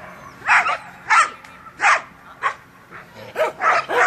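A dog barking repeatedly in short, loud barks, about one every half second to second at first and coming faster near the end.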